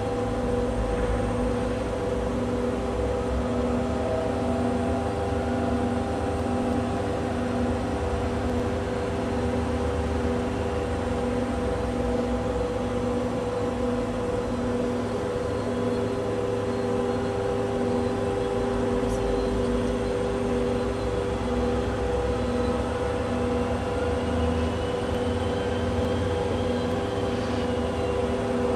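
Diesel locomotive standing with its engine running, a steady hum with a lower tone pulsing on and off about every two-thirds of a second.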